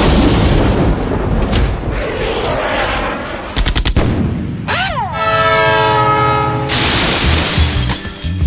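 A quick montage of library sound effects: a noisy passage, a cluster of sharp clicks, then a horn-like chord of steady tones held for about a second and a half, followed by a burst of noise and a fast rhythmic pattern.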